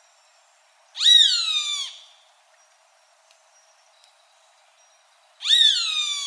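Roadside hawk (Rupornis magnirostris) calling twice, with two high screams about four and a half seconds apart. Each jumps up sharply and then slides down in pitch over about a second.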